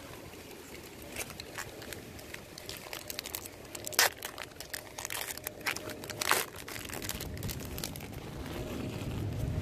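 Crinkling and tearing of a baseball card pack's wrapper as it is handled and opened, with scattered crackles and two louder rips about four and six seconds in.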